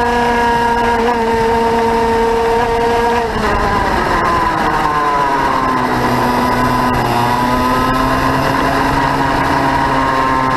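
Two-stroke kart engine heard onboard at racing speed, holding a steady high note, briefly easing off about three seconds in, then pulling back up to a steady note through the rest of the lap.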